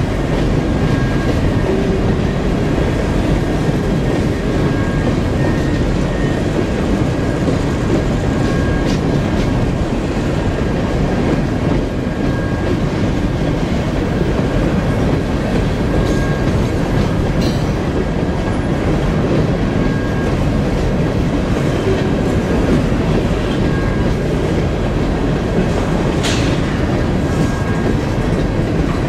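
Herzog ballast hopper cars rolling past on steel wheels: a steady rumble with clickety-clack over the rail joints. A couple of brief high squeals come through, one past the middle and one near the end.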